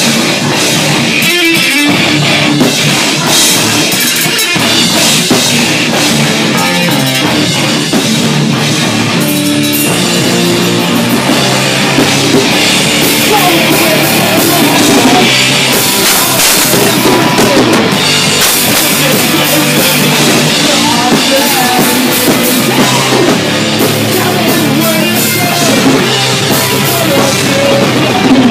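A rock band playing a heavy hardcore punk song loudly: electric guitar, bass guitar and drum kit together, with no pause.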